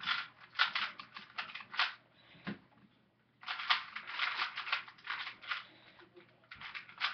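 Rubik's cube being turned quickly in a speed solve: rapid clicking and clacking of the plastic layers in flurries, with a pause of about a second and a half partway through.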